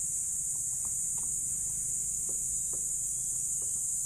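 Steady high-pitched chirring of crickets, with a low hum underneath and a few faint small clicks.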